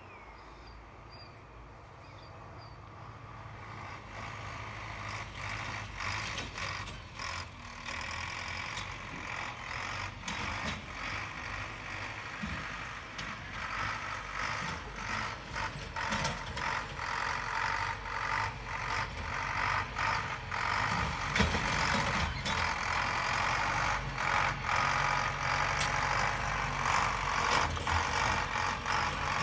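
Farm tractor engine running as the tractor drives closer, getting steadily louder, with rattling and clanking from the machine and its rear implement.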